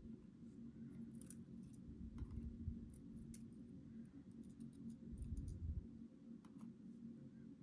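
Faint scattered clicks and light taps of small metal lock parts being handled as a Schlage Primus Everest cylinder is reassembled, with a couple of soft bumps and a steady low hum underneath.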